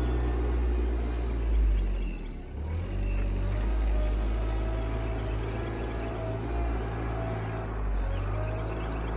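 RK24 compact tractor's engine running steadily, with a brief dip and pick-up in engine speed a couple of seconds in.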